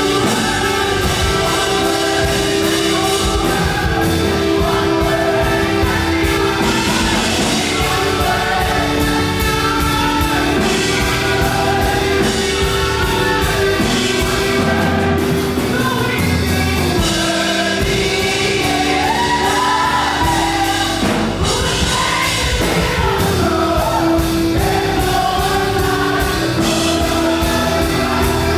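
Live up-tempo gospel praise music: a group of singers over a full band, loud and steady throughout.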